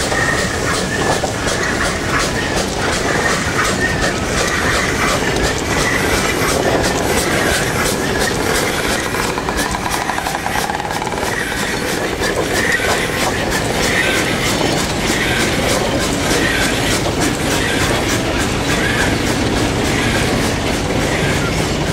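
Loaded narrow-gauge sugar-cane wagons rolling past on light track, their wheels clattering steadily over the rail joints with an on-and-off squeal, as a small steam locomotive works the train through the yard.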